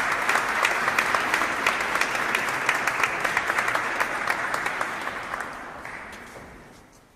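Crowd applause, many hands clapping densely, fading out steadily over the last few seconds.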